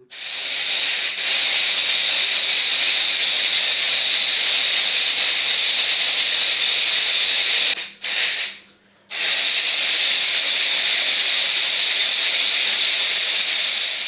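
A gesture-controlled 4WD RC stunt car's small electric drive motors and gears whirring with a steady high hiss as it drives. The whirring cuts out just before eight seconds in and starts again about a second later.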